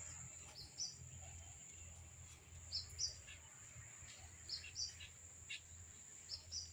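A bird calling in pairs of short, high chirps, four pairs about two seconds apart, over a steady high-pitched insect drone.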